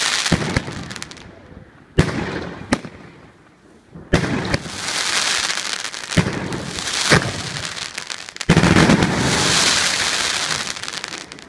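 Fireworks cake of mixed-calibre 30–50 mm shots firing: a sharp bang every second or two, about seven in all, each followed by a fading hiss of high noise lasting a few seconds.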